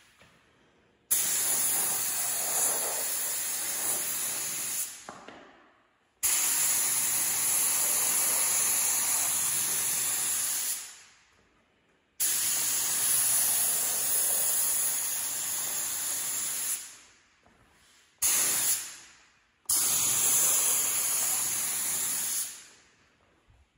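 Gravity-feed compressed-air paint spray gun hissing in five trigger-pulled passes while painting a metal panel: four of about four to five seconds and one short one, each cutting in abruptly and dying away over about a second.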